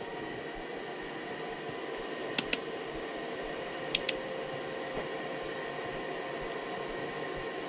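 Steady mechanical hum with a few steady tones in it, broken by two pairs of sharp clicks about two and a half and four seconds in.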